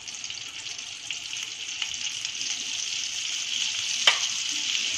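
Butter and oil sizzling on a hot tawa, a steady hiss that grows slowly louder, with a single sharp click about four seconds in.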